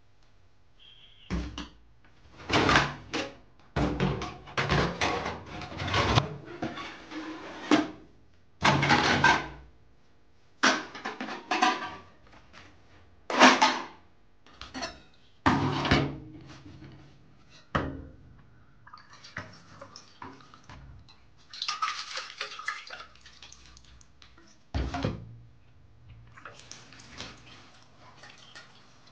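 Kitchen clatter: metal pots, lids and a metal kettle knocking and rattling as they are handled, in a run of separate bangs with quieter handling noises between them.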